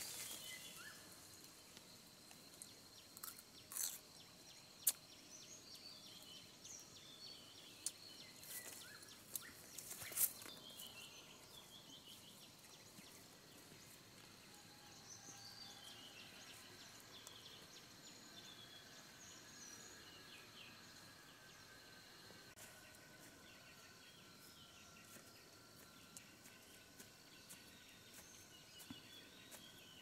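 Faint countryside ambience: birds calling in short runs of quick falling chirps, over a steady high insect drone. A few sharp snaps and rustles of leafy branches come in the first ten seconds.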